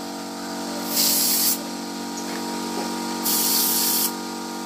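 Compressed-air paint spray gun hissing in two short bursts about two seconds apart as it sprays paint dots through a hand-held stencil, over a steady machine hum.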